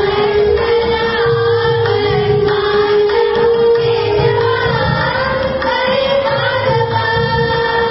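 A group of children singing a Hindu devotional bhajan together in an Indian classical style, over a steady held drone note and a regular low percussion beat.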